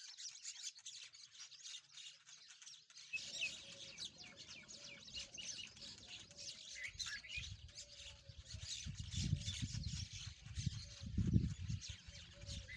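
Rosy-faced lovebirds chirping: many quick, high, overlapping chirps without pause. About three seconds in, a low rumble joins them and swells strongest near the end.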